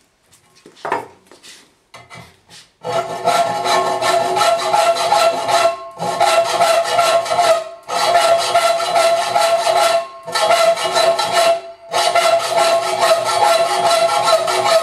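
Hand hacksaw cutting a metal piece clamped in a bench vise: a few light knocks, then from about three seconds in long runs of rapid back-and-forth rasping strokes with a steady ringing tone from the metal, broken by brief pauses.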